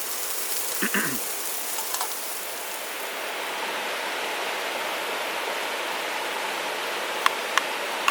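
Steady hissing noise, like rain or running water, throughout. A short low hum comes about a second in, and two sharp clicks come near the end.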